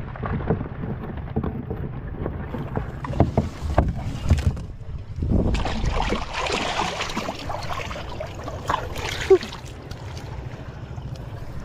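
Water splashing and sloshing with scattered knocks and bumps over a low rumble, rising to a louder rush of water in the middle and ending with one sharper knock.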